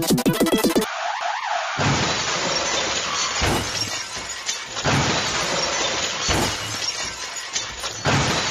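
Electronic music cuts off about a second in, followed by a run of loud, harsh crashing noise that restarts abruptly about every one and a half seconds, like glass shattering.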